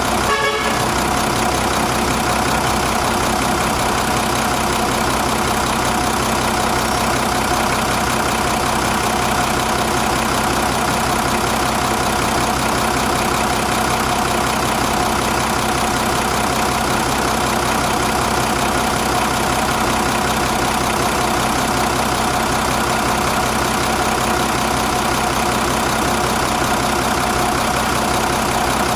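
Nissan FE6 six-cylinder diesel engine idling steadily.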